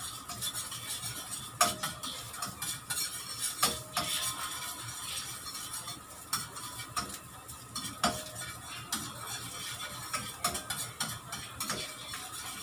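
A spatula scraping and tapping against a metal frying pan as food is stir-fried, with oil sizzling steadily underneath.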